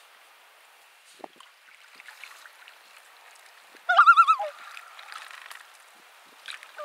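A bird's loud wavering, warbling call, lasting about half a second, about four seconds in, with another call starting at the very end.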